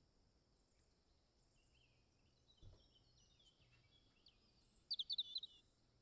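Common myna calling: scattered high chirps and whistles start about halfway through and build to a quick run of loud, sharp notes near the end.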